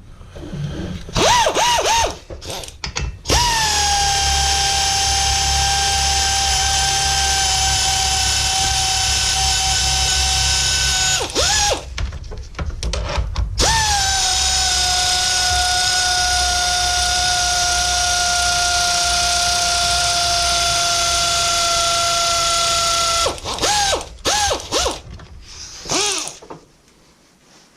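A cordless power driver whirs in two long runs of about eight and ten seconds, with short on-off blips before and after. The whine dips as each run starts and sags slowly as it goes. It is loosening the screws that hold the intercooler pipe to the turbo.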